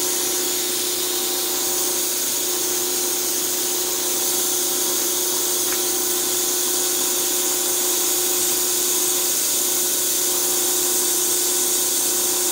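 Steady shop machinery running: a constant motor hum with a high hiss that does not change.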